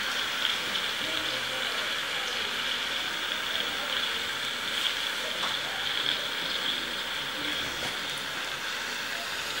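Meat, onions and green pepper frying in a metal pot, a steady sizzle.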